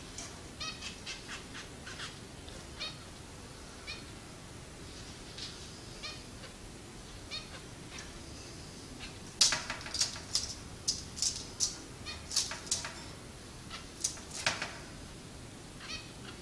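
Pet finches calling: short chirps, scattered at first, then a run of louder, quicker calls from a little past halfway until near the end.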